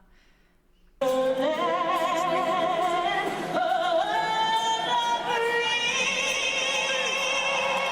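Music with a solo singing voice holding long notes with vibrato, starting about a second in after near silence.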